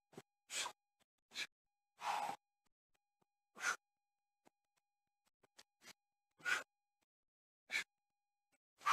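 A man breathing hard during burpees, in short noisy bursts about once a second, with his trainers scuffing on the tarmac path as he jumps his feet back and forward.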